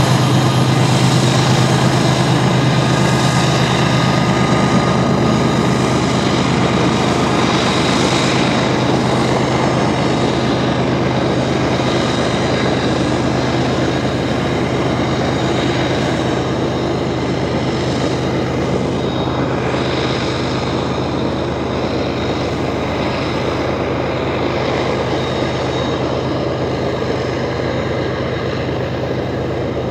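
Diesel locomotives of a coal train running under power, a steady low engine drone at a constant pitch with wheel and rail noise above it, slowly fading as the train moves away.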